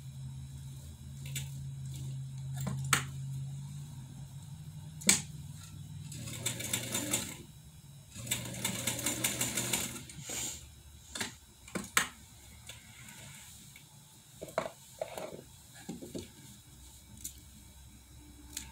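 1957 Atlas straight-stitch sewing machine running under its electric motor in several bursts, the needle clattering rapidly, with stops in between and a few sharp clicks. In the later part, quieter knocks and rustling as the fabric is handled.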